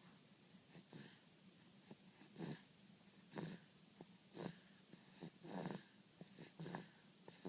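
Seven-week-old baby snoring in sleep: faint, noisy, snorting breaths about once a second.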